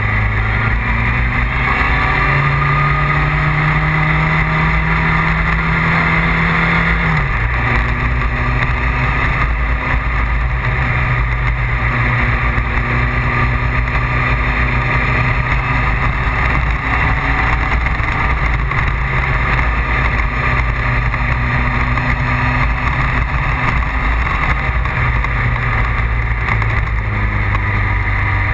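Vehicle engine running steadily at road speed, heard from onboard, over a constant rush of road and wind noise. Its note drops abruptly about seven seconds in, as at a gear change.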